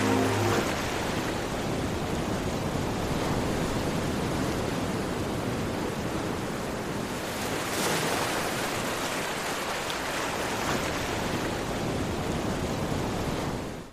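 Ocean surf: a steady rushing wash of waves, swelling about eight seconds in and fading out quickly at the end. The last notes of music stop about half a second in.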